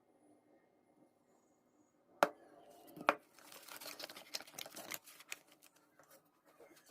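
Kitchen handling noise: a sharp knock a little over two seconds in, another just after, then a second or so of quick clicking and rustling, with a few lighter ticks afterwards.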